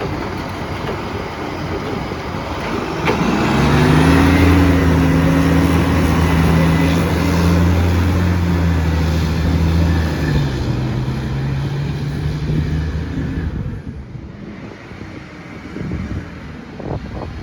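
Garbage truck engine with a massive exhaust leak, getting loud about three seconds in with a deep, steady drone, dropping in pitch after about ten seconds and falling quieter for the last few seconds.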